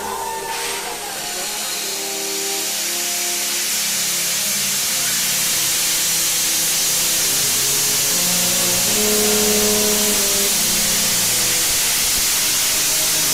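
Steady hiss of steam escaping from the AD60 Beyer-Garratt steam locomotive 6029, building up over the first few seconds and then holding.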